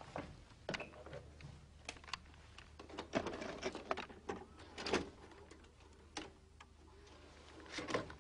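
Clicks, taps and light knocks of hands handling a video deck and its clear plastic cover. They come irregularly, thickest in a cluster in the middle and again near the end.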